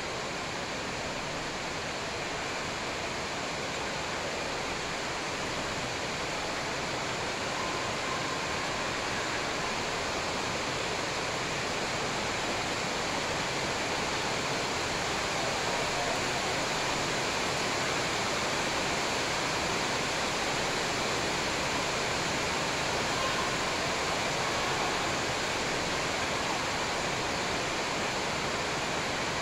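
Steady, even hiss-like noise with no distinct shuttlecock hits, footsteps or voices standing out.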